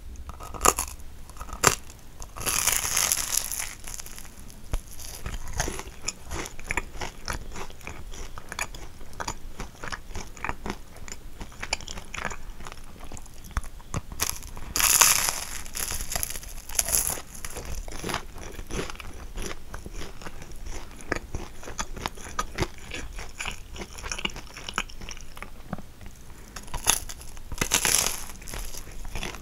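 Close-miked eating of caramelised kouign-amann pastry: three crisp, crunchy bites through the sugary crust, with steady chewing and small wet mouth clicks in between.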